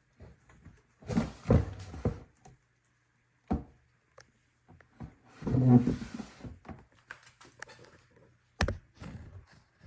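Handling noises from snake and rat enclosures: a series of thuds and knocks, with a longer, louder clatter about halfway through and a sharp knock near the end.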